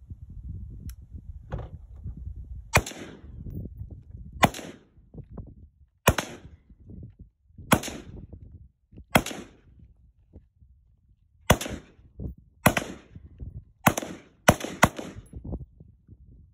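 About ten gunshots from a shoulder-fired long gun, each a sharp crack with a short tail. They come roughly one every second and a half, then three in quick succession near the end.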